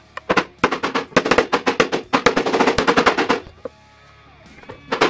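Hammer knocking maple bowtie inlays down into their glued recesses in a live-edge board, a fast run of sharp knocks, about eight a second, that stops about three and a half seconds in. A short burst of sound comes near the end.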